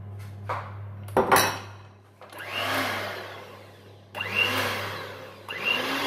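Electric hand mixer beating powdered sugar, cheese and cream in a stainless steel bowl, run in three short bursts, each starting abruptly and winding down. A loud knock comes about a second in, just before the first burst.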